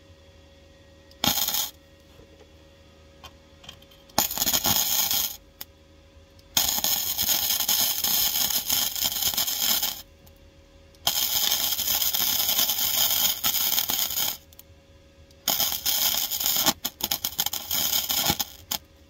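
MIG welder arc crackling and hissing in five bursts as it welds the steel rear floor pan of a car: a brief tack about a second in, a shorter run, two steady runs of about three and a half seconds, and a final run that stutters on and off near the end.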